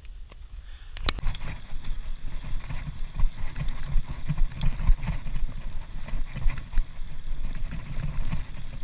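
Mountain bike riding over a rough concrete road: a bumpy low rumble from the tyres and the shaking bike, mixed with wind on the microphone. It starts after a sharp click about a second in.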